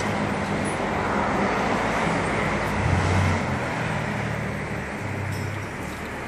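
Car engines running with road traffic noise, a low engine hum that swells about three seconds in and then eases.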